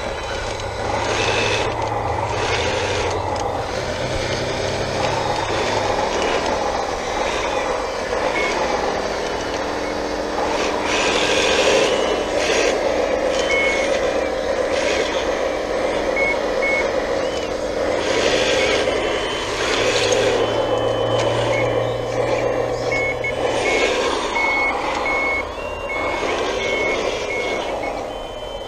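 1/14 scale hydraulic RC wheel loader and bulldozer working dirt: the whine of their motors and hydraulic pumps rises and falls, with bouts of scraping. A reversing alarm beeps in short, even pips in the middle and again near the end.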